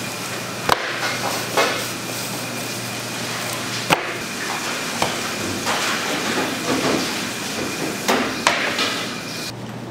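Racks of raw pork spare ribs slapped down and shifted on a stainless steel table: about half a dozen sharp, irregularly spaced slaps and knocks over a steady low hum.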